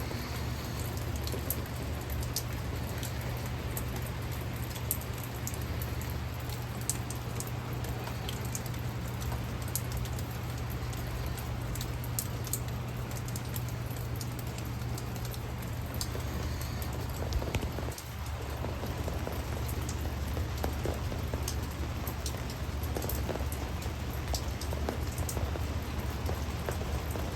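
Storm rain falling and dripping, with many sharp drop ticks over a steady low rumble.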